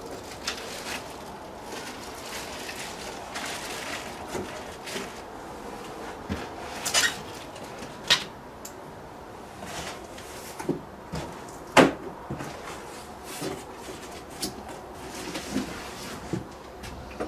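Cardboard box and foam packing being handled while a multicopter kit is unpacked: rustling with scattered knocks and scrapes, the loudest about twelve seconds in.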